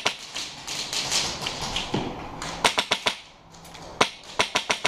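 Airsoft gun firing: a few single shots a little past the middle, then a quick burst of about five shots near the end.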